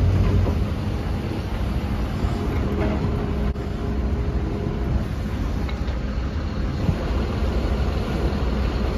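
Wheel loader's diesel engine running steadily while the operator works the hydraulics to test a ram fitting that has just been re-threaded and refitted.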